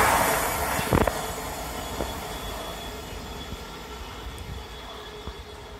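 A train running away along the track, its noise fading steadily, with a couple of sharp wheel knocks about one and two seconds in and a faint thin wheel squeal.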